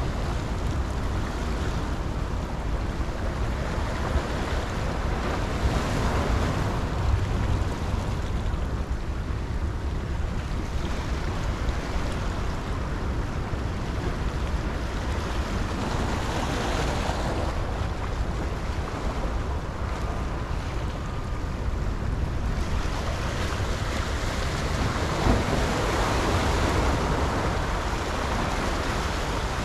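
Ocean surf washing over and around the rocks of a jetty, surging several times as waves break, over a low rumble of wind on the microphone.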